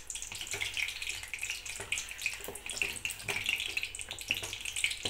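A metal spoon stirring powdered jaggery into soft, wet sweet pongal in a clay pot, a wet stirring sound with scattered light knocks of the spoon.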